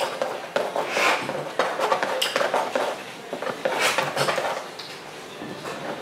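Steel palette knife scraping and clicking against a palette as oil paint is mixed: a series of short scrapes with a few sharp clicks.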